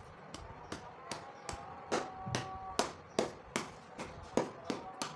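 Kinetic sand being cut with a blade, each stroke ending in a sharp tap or chop on the hard base beneath, in an even rhythm of about two or three a second.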